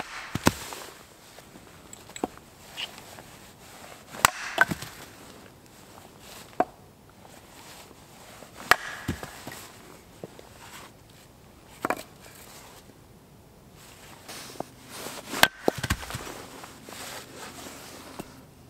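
Hatchet blows on wood against a wooden chopping block, splitting logs for firewood: a dozen or so sharp chops at irregular intervals, some coming in quick pairs.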